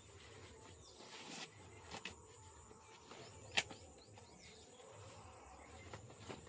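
Faint outdoor farm ambience with light bird chirping and a steady high thin hum, broken by a few short sharp clicks; the loudest click comes about three and a half seconds in.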